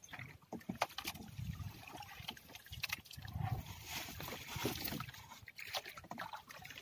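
Sea water sloshing and trickling against a small outrigger boat as a fishing net with floats is hauled in, with scattered faint clicks and knocks.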